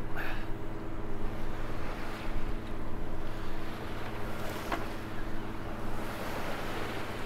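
Sea water rushing and splashing along a sailing yacht's hull and bow as it pushes through a choppy sea, with wind on the microphone and a steady low drone underneath. One brief knock comes a little past halfway.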